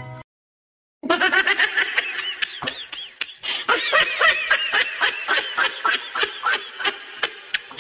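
Laughing in rapid strings of short high-pitched bursts, starting about a second in after a brief silence.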